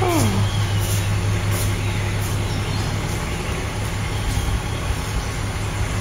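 Steady low hum of a running engine under an even rumble, with a short falling tone right at the start.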